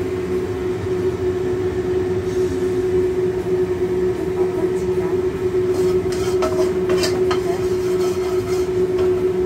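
Kitchen extractor fan running with a loud, steady hum. About six to seven and a half seconds in, a few short clicks and crackles come as food goes into the hot oil in the wok.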